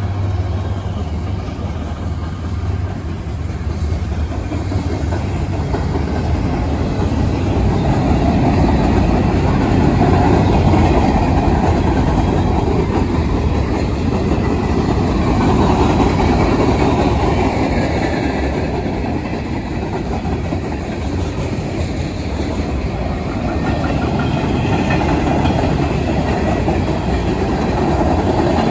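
A CSX mixed freight train rolling past close by: covered hoppers and tank cars go by on steel wheels, making a deep, steady running noise of wheels on rail.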